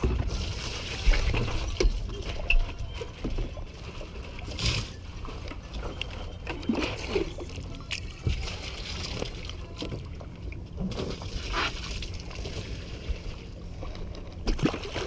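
Water lapping and sloshing against the hull of a small fiberglass boat, with a few knocks in the first few seconds and two short splashes, about five and twelve seconds in.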